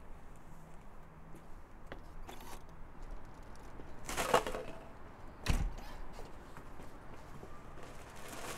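Quiet background broken by a sharp clack about four seconds in, then a heavy thump about a second and a half later, as of a door or gate banging shut.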